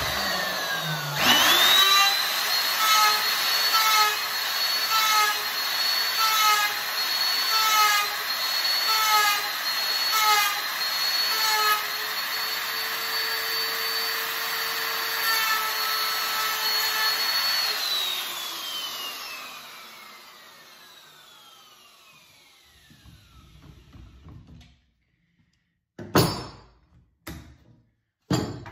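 Handheld electric router with a flush-cutting bit starting up to a steady high whine, then trimming a wooden snooker cushion rail flush to a template in short repeated bites about every 0.7 s. It runs free for a few seconds, is switched off and winds down with a long falling whine. Two sharp knocks near the end.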